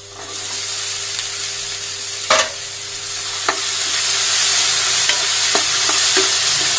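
Boiled green peas tipped into a hot oiled kadai of onions, starting a sizzle that grows louder, then stirred with a plastic spoon. A sharp knock against the pan about two seconds in, and a few lighter clicks of the spoon on the pan after it.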